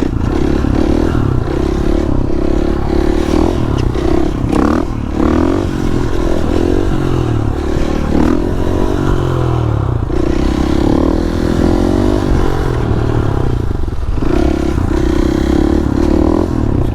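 KTM supermoto motorcycle's single-cylinder engine revving up and down repeatedly as the throttle is worked during wheelie riding.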